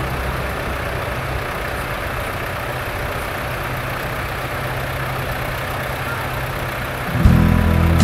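Tractor diesel engine running steadily, with a second, louder engine sound starting about seven seconds in.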